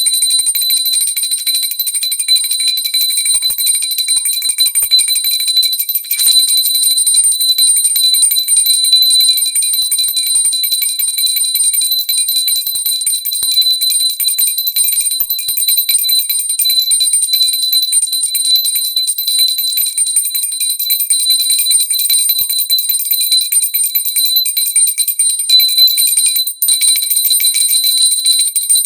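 Brass pooja bell rung without pause, its clapper striking rapidly to give an unbroken, high, shimmering ring. The ringing breaks off very briefly about six seconds in and again near the end.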